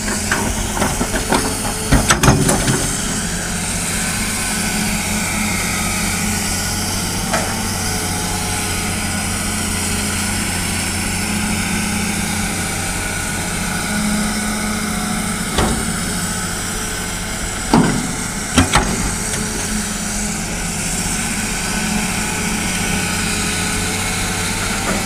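Hitachi hydraulic excavator's diesel engine running steadily while it loads soil into a steel dump-truck bed. Soil and rocks thud into the bed about two seconds in, and three sharp knocks come later, between about 15 and 19 seconds in.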